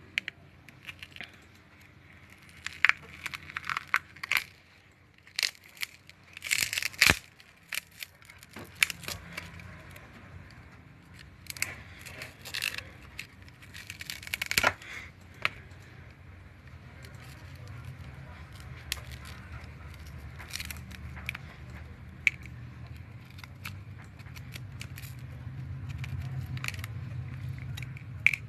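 The cracked touch screen glass of a QMobile i8i being pried and peeled off the phone's frame: repeated crackling, tearing and clicking, busiest in the first half. A low hum grows louder in the second half.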